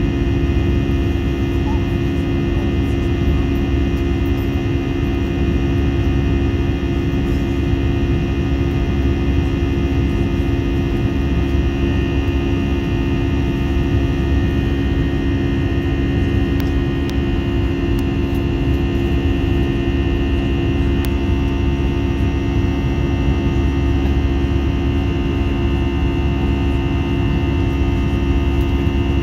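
Airbus A320 cabin noise in flight: the jet engines' steady hum over a low rush of air, with a higher whine that rises slightly in pitch partway through.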